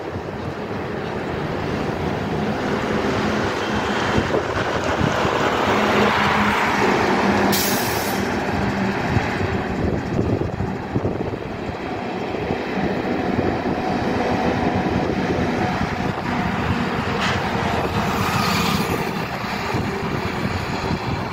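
Heavy goods truck driving toward and past on a highway: steady diesel engine and tyre noise over road traffic, with a short, sharp hiss about seven and a half seconds in.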